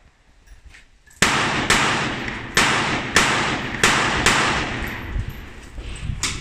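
Rifle shots fired in a practical shooting stage: six shots in about three seconds at uneven intervals, each with a short ringing tail. A short sharp knock comes near the end.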